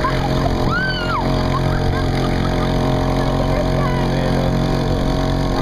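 Boat motor running steadily at a constant pitch. A few short high calls rise and fall over it, the clearest about a second in.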